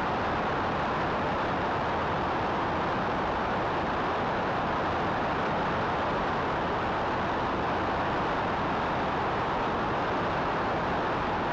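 Steady, unchanging rush of wind and engine noise from a Cessna 172 in level flight, heard from a camera mounted out on the wing in the slipstream.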